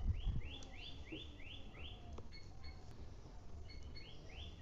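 Birds calling in the background: runs of short rising chirps repeated several times a second, in two bursts, with short steady high whistled notes in between. A soft low thump at the very start.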